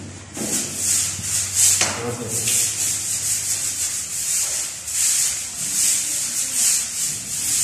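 Broom sweeping dust and grit across a bare concrete floor close by, in quick, rough, repeated strokes about two a second.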